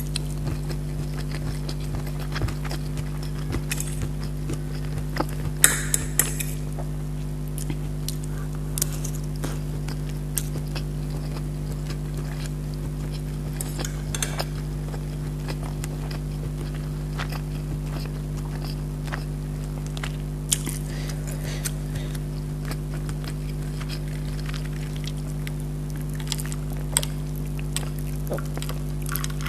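Mukbang eating sounds: a fork tapping and scraping on plates of rice and curry, with chewing, as short scattered clicks over a steady low hum. The busiest run of clinks comes about six seconds in, and near the end there are sips from a glass.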